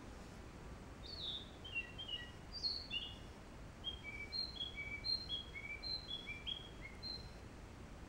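A small songbird singing clear whistled notes over a faint steady background hiss. It opens about a second in with a few quick falling notes, then repeats a short phrase of three notes at different pitches four or five times before stopping a little before the end.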